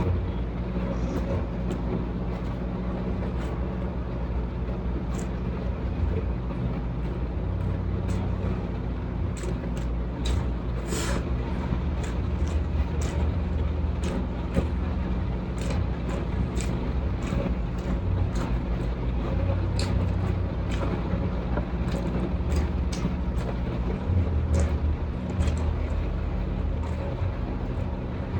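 A steady low rumble with frequent short clicks and smacks of chewing and eating over it, one crisper crackle about eleven seconds in.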